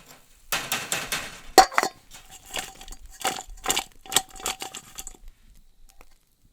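Metal cooking utensil scraping and clinking against metal cookware in a run of strokes, with one sharp ringing clink about one and a half seconds in; the strokes stop about five seconds in.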